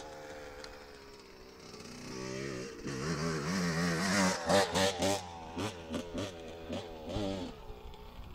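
Two-stroke Suzuki RM125 dirt bike engine: its note fades at first, then builds and revs up to its loudest about four to five seconds in, followed by a series of short throttle blips rising and falling in pitch.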